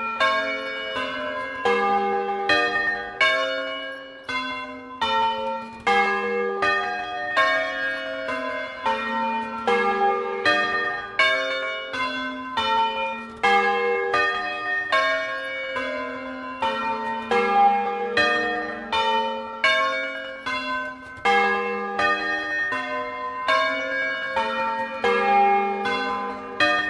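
A ring of six bronze bells cast by Francesco De Poli in 1994 and tuned to a major sixth (A-flat to F) is rung by hand in the Bolognese 'doppio' style from a portable wooden frame. It makes a continuous, uneven run of bell strokes, each left ringing and overlapping the next.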